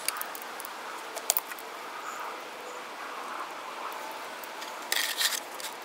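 Faint steady background hiss with a few light clicks, then a short crunching scrape about five seconds in as a plastic oil drain pan is set down on gravel.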